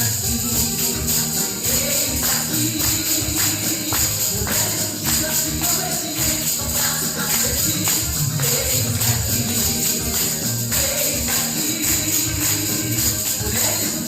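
Band music, mostly instrumental, with a steady beat and continuous high jingling throughout.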